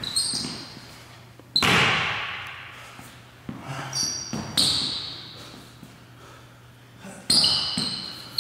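A basketball bounced a few times on a hardwood gym floor, each bounce echoing through the hall, with sneakers squeaking on the hardwood.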